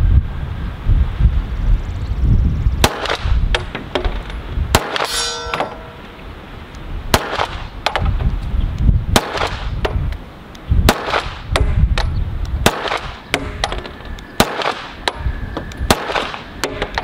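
A string of 9mm pistol shots from an Arsenal Strike One, fired at about two a second, with steady wind rumble on the microphone. One shot about five seconds in is followed by a ringing metallic clang, a hit on the steel target.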